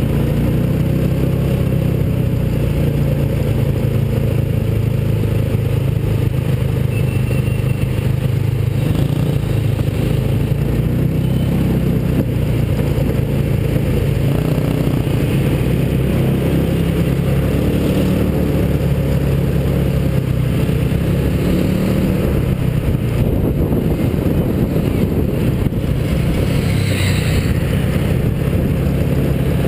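Small mini hotrod car's engine running steadily while driving in traffic, heard from the car carrying the camera. A brief higher-pitched sound comes in near the end.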